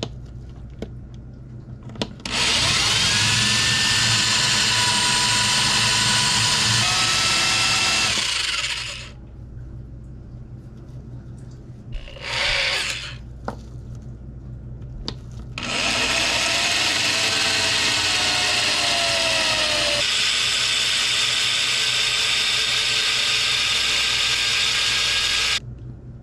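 Electric hand drill boring a hole into a carved wooden fishing-lure body. The motor spins up with a rising whine and runs for about seven seconds, gives a short burst midway, then runs steadily for about ten seconds more before stopping near the end.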